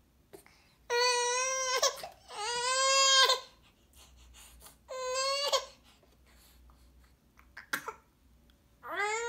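Baby fussing with short whiny cries, four of them, each about a second long, the last starting near the end. A small click sounds between the third and fourth.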